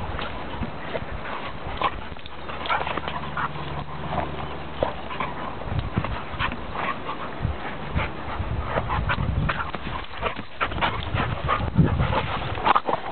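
Two yellow Labrador retrievers play-fighting, with dog sounds and many short scuffling noises throughout.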